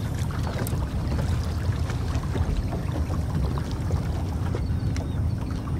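Wind rumbling on the microphone over small waves lapping and splashing against a boat's hull, with a few faint light ticks.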